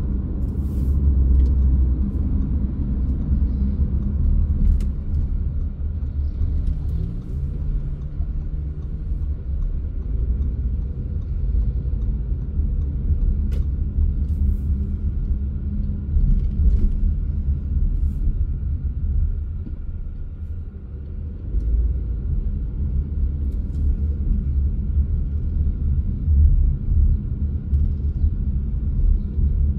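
Car engine and road rumble heard from inside a moving car, steady and low, with a brief shift in engine pitch about seven seconds in and a short quieter stretch about two-thirds of the way through.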